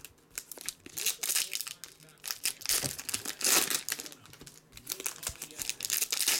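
Foil wrappers of DC Bombshells trading-card packs crinkling and tearing as they are ripped open by hand, in irregular bursts, loudest about halfway through.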